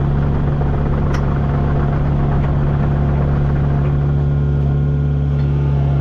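Diesel engine of compact heavy equipment running at a steady speed, a constant even drone with no revving.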